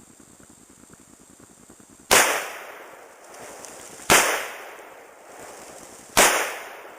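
Three rifle shots from a 1963 SKS firing 7.62×39 Wolf soft-point rounds, spaced about two seconds apart, each followed by a short echoing decay.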